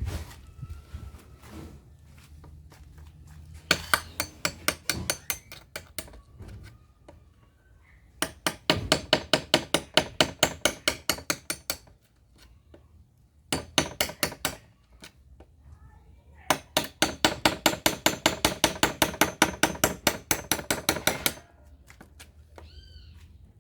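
A hammer striking rapidly, about five evenly spaced blows a second, in four bursts of one to five seconds each.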